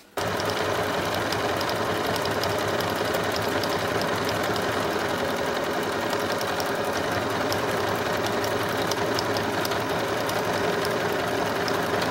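Janome DC 4030PR electronic sewing machine starting abruptly just after the beginning and running steadily at an even speed as it stitches an automatic buttonhole under the buttonhole foot.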